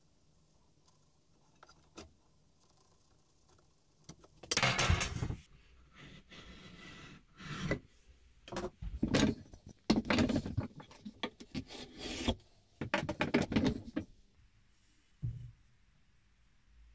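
Hardwood block being handled on a wooden workbench: irregular bursts of wood scraping and rubbing on wood, then a single low knock near the end.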